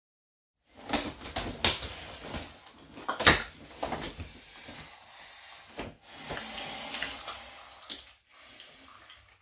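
Latex catsuit rubbing and squeaking against latex bedsheets as the wearer shifts and kneels. It comes as a string of scrapes and squeaks with sharp clicks, and the loudest is a sudden knock about three seconds in.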